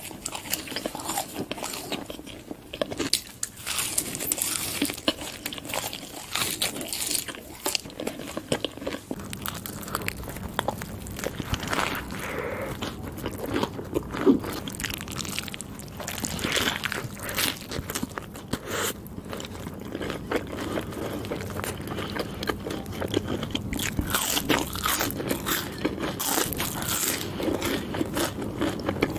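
Close-miked eating sounds: french fries bitten and chewed with crisp crunches, then partway through a thick burger bitten and chewed in soft, wet mouthfuls. A faint low hum runs under the second part.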